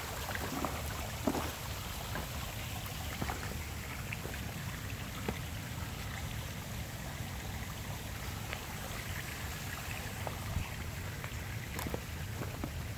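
Steady trickle and rush of spring water running out over rocks, with a low steady rumble underneath. Scattered sharp clicks of loose flat stones shifting underfoot.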